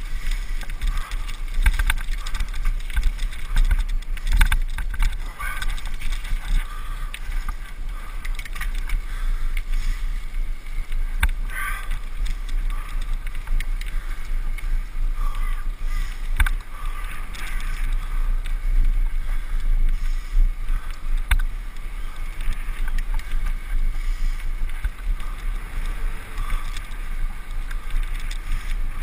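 Wind rumbling on a GoPro's microphone while riding along, with frequent clicks and rattles from the bumpy path and lane.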